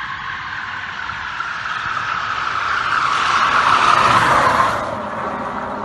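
Rear tyres of an electric-converted Ferrari 308 GTE squealing through a smoky burnout, building to their loudest about four seconds in, then easing off. No engine note: the car runs on an electric motor.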